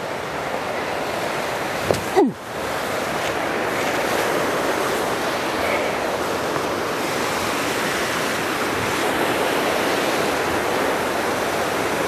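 Steady rush of running water from a partly frozen waterfall and its creek. About two seconds in, a brief sound falls quickly in pitch and there is a momentary break in the sound.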